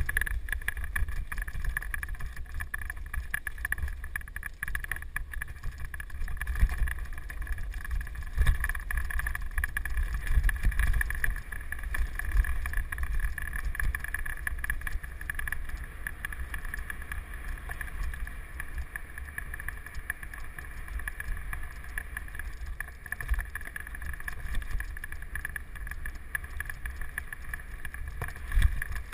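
Mountain bike ridden fast down a forest trail, heard from a camera mounted on the bike: wind rumbles on the microphone under constant rattling and frequent knocks as the bike runs over bumps and roots.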